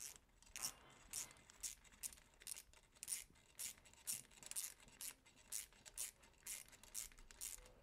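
Screwdriver turning the screw of a metal worm-drive hose clamp to tighten it around poly pipe on a hose barb. It makes faint, regular scraping clicks, about two a second, one for each twist of the screwdriver.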